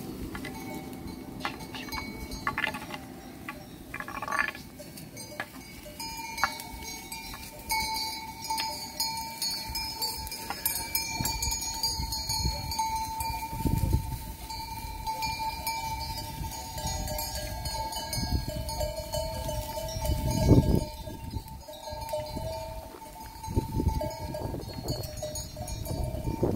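A large flock of sheep with many neck bells ringing and clinking, and a sheep bleating now and then. A few low dull bumps break in, the loudest about twenty seconds in.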